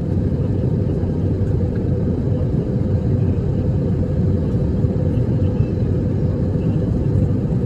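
Steady low rumble of airliner cabin noise inside an Airbus A350-900 in cruise flight, the even roar of airflow and engines heard from a window seat.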